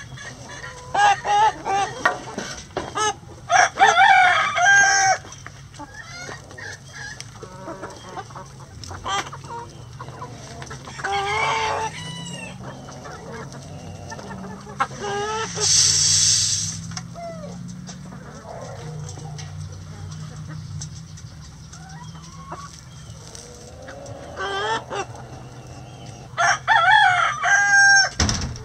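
A backyard flock of hens and roosters clucking and squawking in loud bursts, busiest near the start and again near the end, with a rooster crowing among them.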